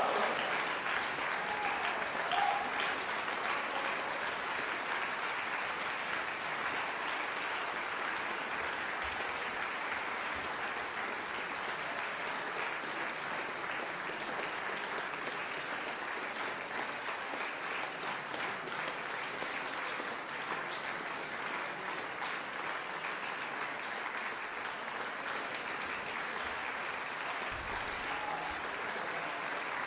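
Concert audience applauding steadily, the clapping a little louder in the first couple of seconds.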